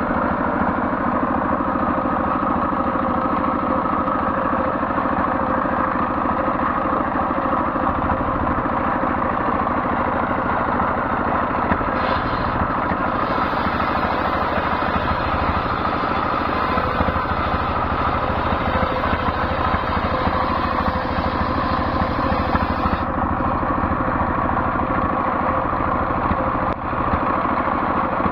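Stationary single-cylinder diesel engine running steadily, belt-driving a large circular saw that rips coconut-palm (glugu) wood into boards, the blade cutting through the wood without a break.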